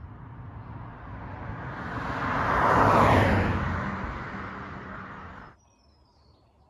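A car passing by, its road noise swelling to its loudest about three seconds in and then fading before it cuts off suddenly.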